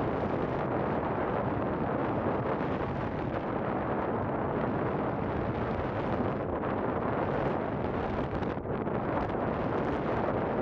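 Steady wind noise on the microphone of a coaster ship underway, over a low, steady hum from the ship's engine.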